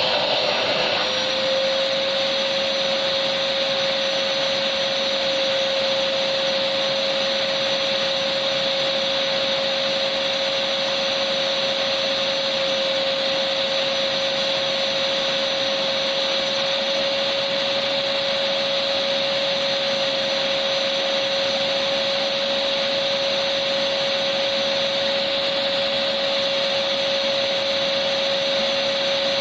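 Electric vacuum cleaner running steadily: a constant motor whine over a rushing hiss of air, with a brief dip in pitch about a second in.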